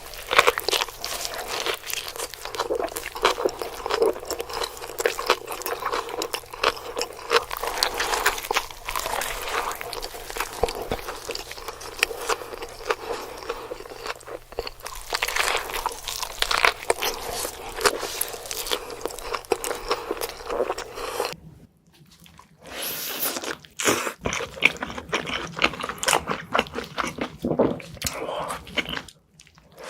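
Close-miked eating sounds: wet chewing, biting and crunching of large burgers, in dense, irregular smacks and crackles. The sound breaks off briefly twice, a little past two-thirds of the way through and again just before the end.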